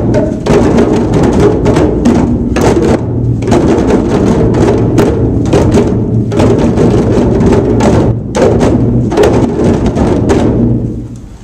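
An ensemble of djembe drums played together by hand in a loud, dense rhythm, stopping near the end.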